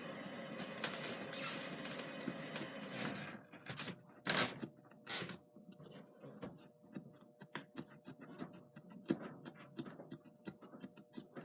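Craft knife cutting foam board: an irregular run of small clicks and scratches, with two louder strokes about four and five seconds in, after a steadier hiss in the first three seconds.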